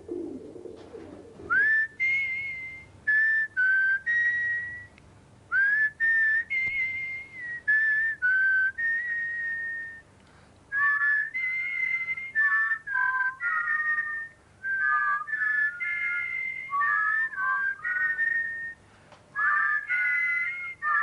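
A tune whistled by mouth in short held notes and phrases with brief gaps, sometimes two notes sounding together. It starts about two seconds in.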